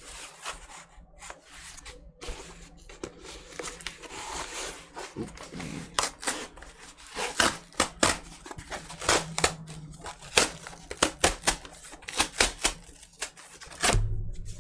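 Cardboard vinyl record mailer handled and rubbed, then its tear strip ripped across the top in a quick run of sharp crackles and pops from the tearing corrugated board, ending with a dull thump.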